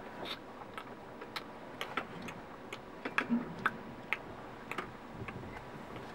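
Faint, irregular light clicks and ticks, about three a second.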